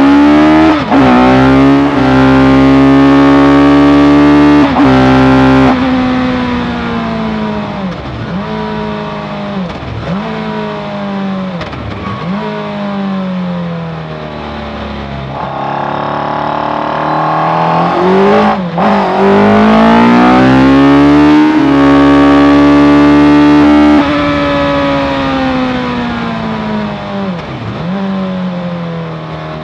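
Suzuki Hayabusa 1300 inline-four engine of a Raptor R track car, running hard at high revs, then easing off through a quieter stretch with several quick gear changes, before pulling hard again with a sharp gear change about two-thirds of the way in and lifting off near the end.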